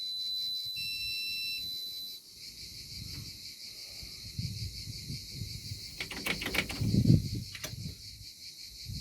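A high electronic beep tone from the car's electrics sounds for about two seconds as power is switched on, with a short second tone over it. Then a handful of sharp clicks and low knocks from switches and handling in the cockpit come around six to seven seconds in.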